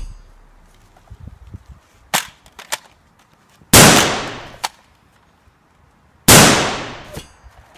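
A few sharp clicks, then two loud gunshot bangs about two and a half seconds apart, each dying away over about a second.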